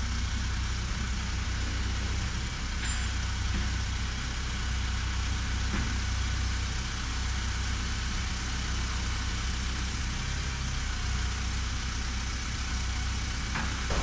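Diesel engine of a Caterpillar boom lifting machine running steadily at a low rumble while it holds a prefab cabin module in place.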